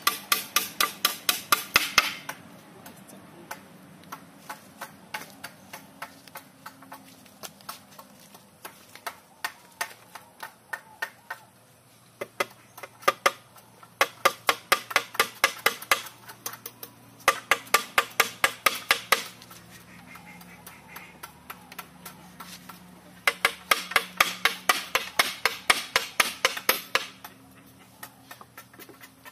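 A hammer driving nails into the wooden slats of a cage frame: quick runs of sharp blows, several a second, with fainter taps and pauses between the runs.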